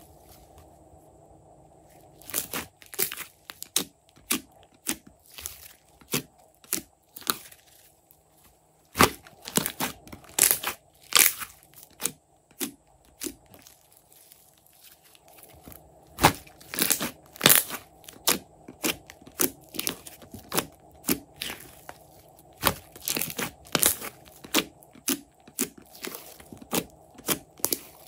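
Slime being squeezed and worked by hand, making many irregular sharp crackles and pops, several a second, with short quiet pauses.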